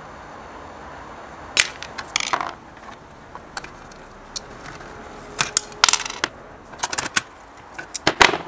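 Rusty steel parts of an old mining lamp and a pair of pliers clinking and rattling as the lamp is handled and its rivets gripped: irregular clusters of sharp metallic clinks, some ringing briefly, after a steady faint hum in the first second and a half.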